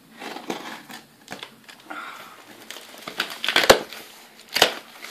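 A cardboard parcel being opened by hand: the box and packing material rustle and crinkle, with two sharp snaps about three and a half and four and a half seconds in.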